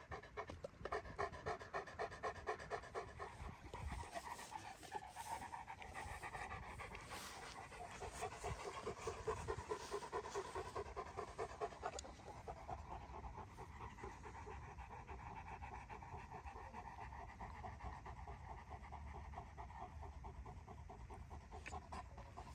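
Dogo Argentino dog panting rapidly and steadily with its mouth open, in quick regular breaths. The panting grows fainter about halfway through.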